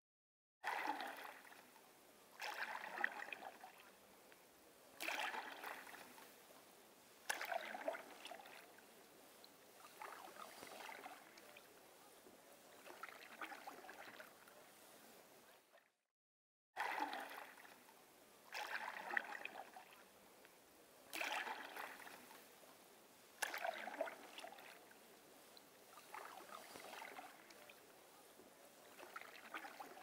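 Canoe paddle strokes in calm lake water: a sharp dip and swish of the blade roughly every two to three seconds, with soft water lapping against the hull in between. The sound cuts out briefly near the start and again about halfway through, then the same run of strokes repeats.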